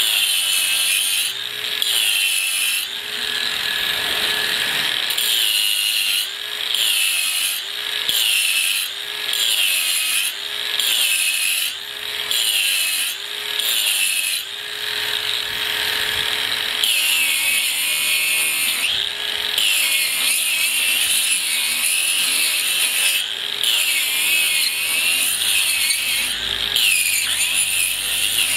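Cordless 18 V brushless angle grinder grinding concrete with a diamond wheel. Its whine sags and recovers about once a second as the wheel is pressed in and eased off, over a steady grinding noise.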